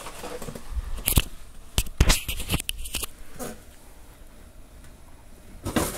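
Hands rummaging among small objects on a workbench: a handful of separate sharp clicks and rustles, a quieter stretch, then more rustling just before the end.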